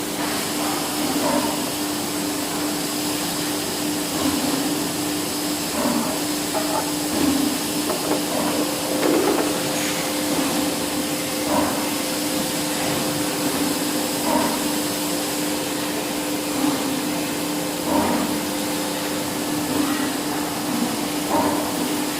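Polyurethane gasket dispensing machine running: a steady hum with a hiss over it, and short knocks every one to three seconds.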